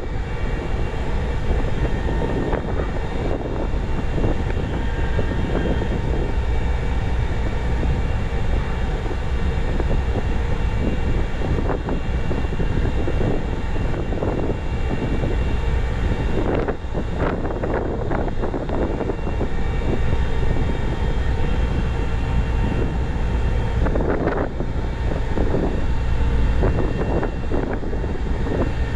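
Ship's diesel machinery running steadily, with a few brief clanks now and then.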